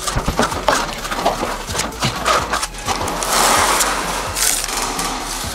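Steel plastering trowels scraping and tapping against a wall as a thick decorative plaster coat is spread: a run of short scrapes and clicks, then a longer hissing scrape about three seconds in.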